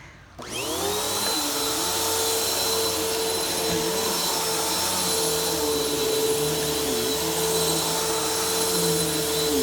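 Vacuum cleaner switched on about half a second in, its motor whining up to speed within a moment, then running steadily on its second power setting.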